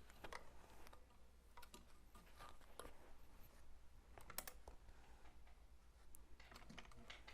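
Near silence with a few faint, scattered clicks and small handling sounds.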